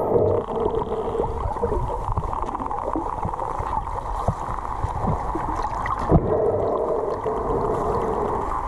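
Underwater sound heard through a camera's waterproof housing: muffled water rumble with a steady low drone and a few short knocks, the loudest about six seconds in.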